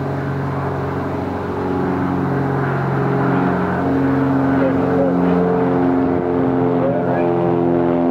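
A large engine drones steadily, its pitch shifting up and down a few times.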